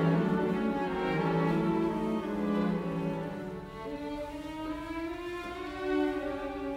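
Background music of bowed strings playing slow, held notes.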